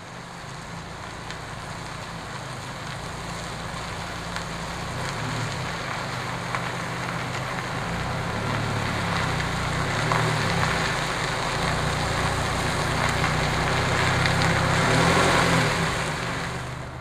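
A motor vehicle running, with a low engine hum under a steady hiss, growing gradually louder and then dropping away near the end.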